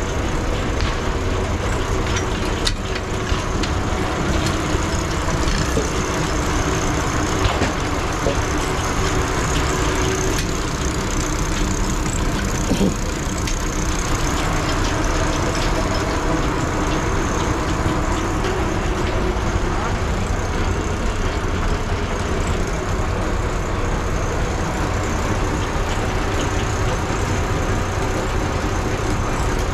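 1919 20-horse Advance-Rumely steam traction engine driving a belt-powered sawmill, running steadily at work, with people talking in the background.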